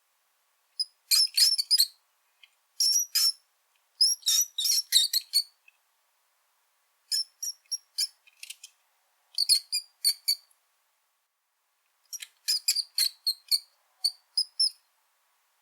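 Brown rat squeaking: runs of short, very high-pitched squeaks in quick succession, about six runs with pauses of a second or more between them.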